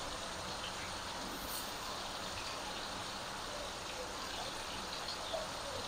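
Pointed gourd pieces sizzling steadily in hot oil in an iron kadai, with faint scattered crackles.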